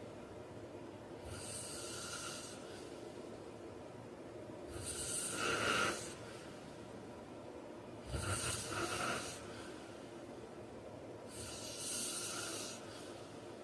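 A man snoring in his sleep: four snores at roughly three-and-a-half-second intervals, the second, about five seconds in, the loudest.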